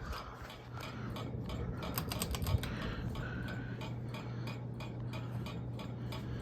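Hampton Bay Carousel 52-inch ceiling fan running on high, with a steady motor hum and a fast, even ticking as it wobbles badly on its bent blades.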